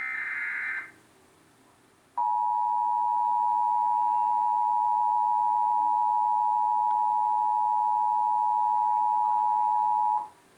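The end of an Emergency Alert System SAME header, a harsh screeching data burst lasting under a second. About a second of quiet follows, then the EAS two-tone attention signal, two steady pitches sounded together, held for about eight seconds before it cuts off.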